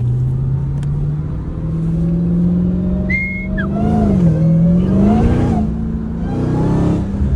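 Dodge Challenger SRT Demon 170's supercharged V8 running under acceleration, its pitch climbing steadily, then dipping and climbing again about four to five seconds in. A brief high squeal sounds about three seconds in.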